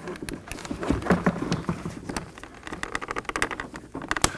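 Door latch cables being handled and fitted into the plastic inner door handle on the back of a car door panel: a quick run of small clicks, taps and rattles.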